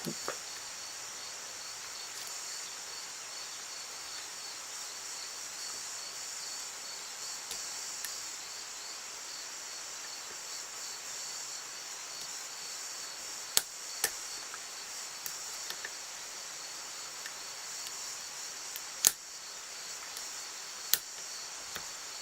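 A handful of sharp, isolated metallic clicks from lock picks working the pins of a five-pin Union lock, spread out with long gaps and the loudest near the end. Under them runs a steady, high insect chirring like crickets.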